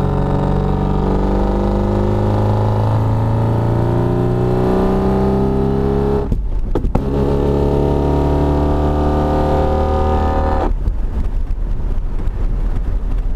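BMW E36 325is straight-six pulling hard under acceleration, its pitch climbing steadily. There is a gear change with a brief gap and clicks about six seconds in, then a second climb, and the throttle comes off near the end into a rougher drone. This is the low-gear pull under which the car makes its noise from a broken differential bolt.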